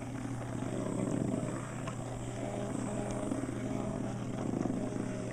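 Two Nano bug vibrating toy bugs buzzing and rattling steadily as they skitter across the floor.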